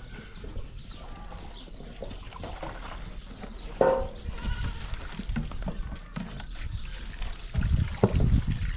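A goat or sheep bleats once, briefly, about four seconds in, over a steady low background, with a few low knocks and thuds near the end.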